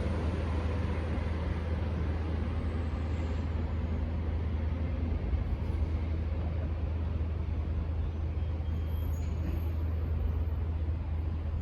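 V/Line VLocity diesel railcar running as it pulls away, a steady low rumble with a hiss over it.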